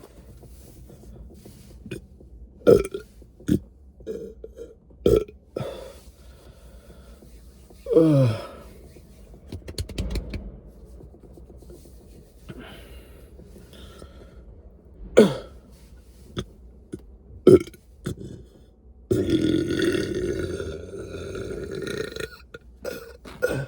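A person burping over and over: a string of short burps spaced a few seconds apart, one longer burp about eight seconds in that slides down in pitch, and a long, rough burp lasting about three seconds near the end.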